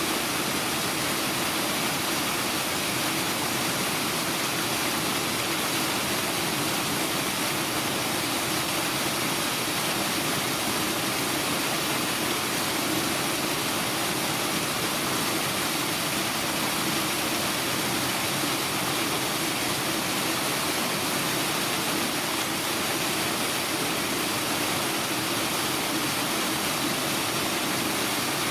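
Steady, unchanging rushing noise with a low hum running through it.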